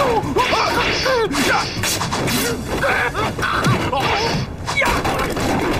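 Dubbed fight-scene sound: repeated blows and crashing impacts, mixed with short cries and grunts of a struggle.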